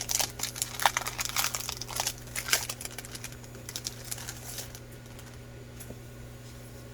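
Packaging crinkling and rustling in the hands as a pack of paper ephemera is opened and handled, busiest for the first few seconds and then dying down to faint rustles.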